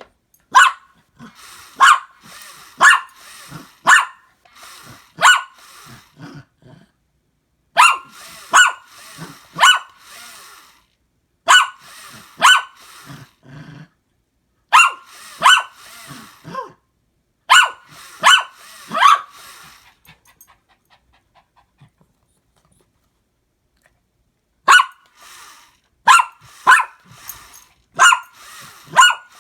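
A dog barking in runs of four to six sharp barks about a second apart, with short pauses between runs and a longer pause about two-thirds of the way through.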